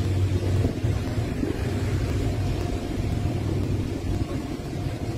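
Long freight train of covered hopper wagons rolling past, a steady low rumble of wheels on the rails.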